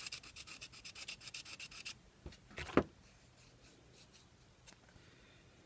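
A sanding block rubbing quickly back and forth over the edge of a resin coaster, about eight strokes a second, shaving down a small bump on the edge. The strokes stop about two seconds in, and one louder single scrape follows shortly after.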